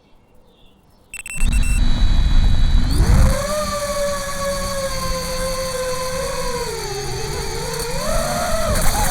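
FPV racing quadcopter's brushless motors spinning up from quiet about a second in, then a loud buzzing whine that rises in pitch and wavers up and down as the throttle changes, over a deep rumble.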